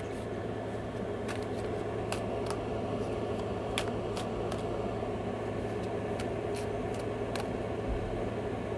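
A tarot deck being shuffled by hand, with soft clicks of the cards every second or so over a steady low hum.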